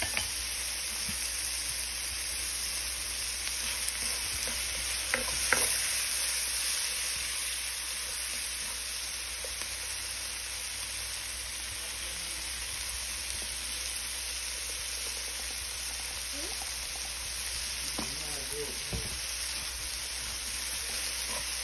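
Chopped onion, tomato, garlic and scallion sizzling steadily in a frying pan as they are stirred with a spatula, with a few short knocks and scrapes of the spatula against the pan around five seconds in and again a few seconds before the end.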